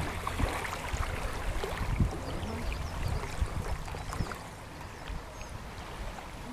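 Small waves lapping and washing over the stony shore of a lake, with wind rumbling on the microphone; the wash grows a little quieter about four seconds in.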